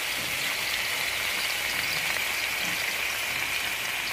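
Seasoned chicken breasts sizzling steadily in hot oil in a nonstick frying pan.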